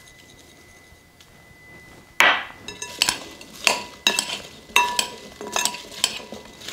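A metal spoon clinking against a glass mixing bowl as chopped vegetables are tossed in it. After a quiet first two seconds come ringing clinks about every two-thirds of a second.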